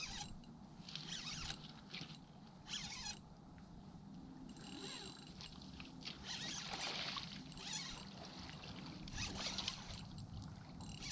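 Spinning reel buzzing in short bursts, one every second or two, while a hooked striped bass pulls against the bent rod.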